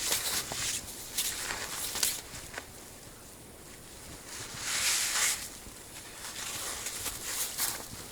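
Footsteps in snow: irregular crunching steps, with a longer, louder swish about five seconds in.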